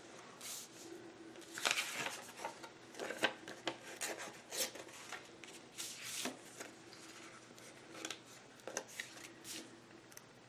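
Paper sticker sheets and planner pages being handled: irregular rustling, crinkles and light clicks as stickers are picked up and placed.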